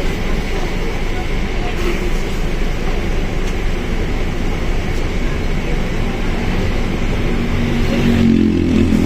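Mercedes-Benz OF1721L bus under way, its diesel engine and drivetrain giving a steady rumble. About two-thirds of the way through, the engine note grows stronger and climbs slightly as the bus pulls harder.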